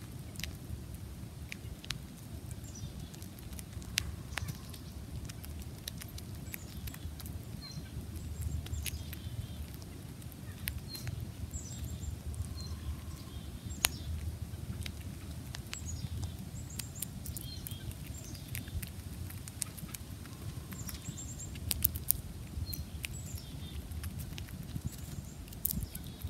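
A grey squirrel eating bird seed close to the microphone: many sharp little clicks and cracks as it picks and chews the seeds. Short, high chirps of small birds come now and then in the background.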